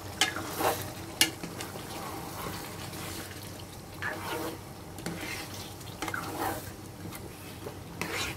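Chicken curry being stirred with a spatula in a pan: wet scraping strokes through thick gravy, one every second or so, with a sharp tap against the pan about a second in.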